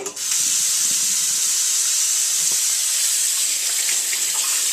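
Kitchen tap turned on, with water running steadily in a loud, even hiss.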